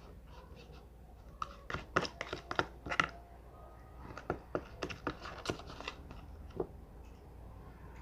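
Irregular small clicks and taps from slime being mixed, clustered around two seconds in and again around five seconds in.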